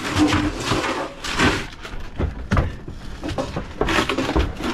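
Irregular knocks, bumps and scraping as a cut-out section of an old foam-insulated boat refrigerator is manhandled past the cabin's wooden joinery.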